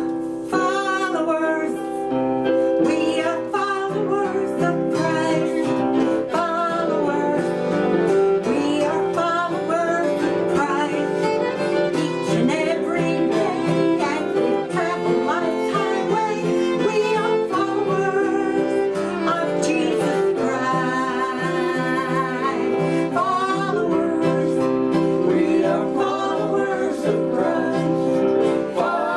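Country gospel song: fiddle, acoustic guitar and keyboard playing, with a woman singing.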